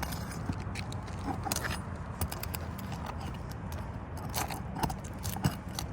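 Snake bar shingle-removal tool working under an asphalt shingle, irregular metallic clicks and scrapes as it pries at the shingle and its nails, which are not coming out. A steady low rumble runs underneath.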